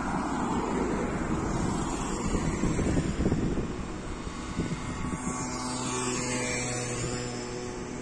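Street traffic passing close by: a car and a van go past in the first half, then a small motor scooter comes by, with a steady engine hum through the second half.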